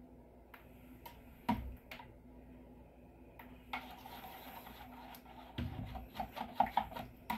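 Handling noise from a plastic pitcher of melted soap and its stirring stick: scattered light knocks and a soft rubbing or stirring sound, with a run of louder taps and knocks near the end.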